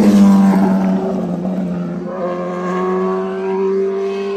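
Engines of a motorcycle and pursuing police cars running fast in a chase: a loud engine note drops in pitch as a vehicle speeds past, then settles into a steady drone, and a second engine note rises about two seconds in.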